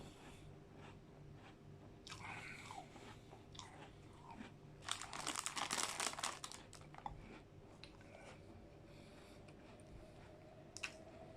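Close-up crunching and chewing of McVitie's digestive biscuit pieces mixed into ice cream, with a louder run of crunching about five seconds in that lasts around a second and a half, then quieter chewing.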